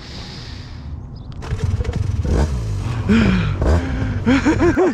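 Wind rumbling on the microphone, with scraping and knocking as the paramotor harness and gear are handled. A person makes a few short vocal sounds near the end.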